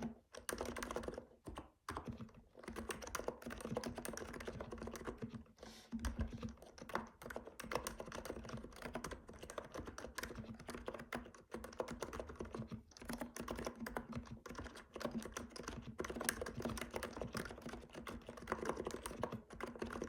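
Continuous typing on a Hansung electrostatic capacitive keyboard with 35 g key switches and Apple-style keycaps: a dense run of keystroke clacks, with a couple of brief pauses about one to two seconds in.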